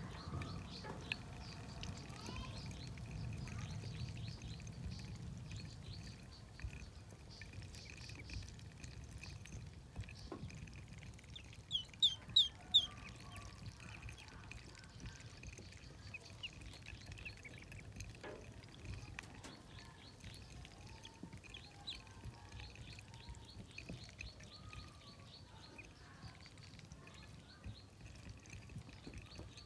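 Newly hatched ducklings peeping, a scatter of short high cheeps throughout, with four loud peeps in quick succession about twelve seconds in.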